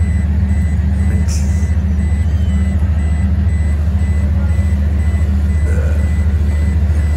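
Steady, loud low hum of a running machine, with a thin high whine over it; a constant mechanical noise that drowns the scene.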